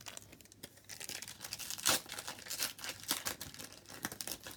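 Wrapper of a pack of football trading cards being torn open and crinkled, in a series of crackly rips with the loudest about two seconds in.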